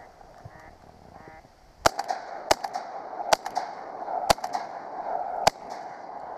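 Shotgun shots fired at flying ducks: five sharp reports in about three and a half seconds, the first about two seconds in, over a steady din of duck quacking.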